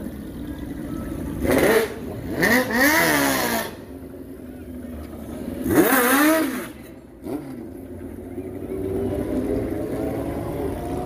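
Vehicle engines revving: three quick blips, each rising then falling in pitch, in the first seven seconds, as motorcycles and a classic car pass. Then an engine note holds steady and slowly rises in pitch as a vehicle pulls away.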